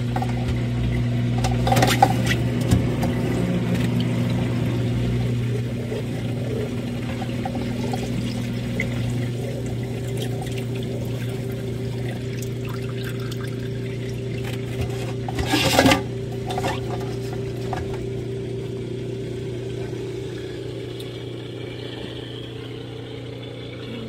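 A HAVA R01 countertop dishwasher draining: waste water pours from its drain hose into a stainless steel sink over a steady hum from the dishwasher's drain pump, and the flow eases off slowly toward the end. Two short knocks come about two seconds in and again about sixteen seconds in.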